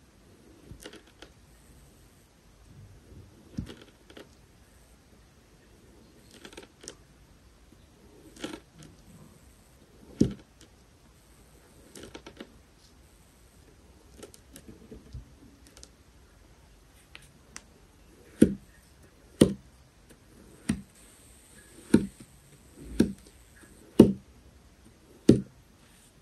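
Serrated kitchen knife cutting through kinetic sand: soft, crumbly slices every second or two, then past the middle louder, sharper chops about once a second as the blade strikes the hard surface beneath.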